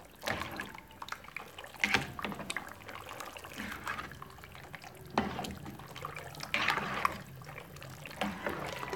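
Metal spoon stirring macaroni in a pot of boiling water: water sloshing and bubbling, with irregular clinks and scrapes of the spoon against the metal pot.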